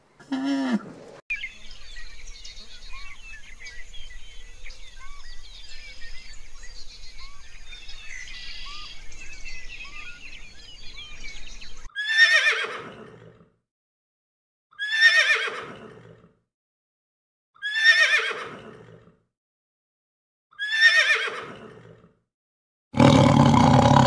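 Birds chirping over a faint low hum for about ten seconds. Then a pony whinnies four times, about three seconds apart, each call falling in pitch. Near the end a tiger gives one loud roar.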